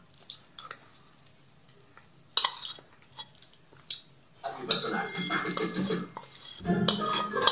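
Metal fork clinking and scraping against a bowl while eating pasta. At first there are a few sharp clicks with quiet between them, the loudest about two and a half seconds in. From about halfway there is denser clatter and chewing.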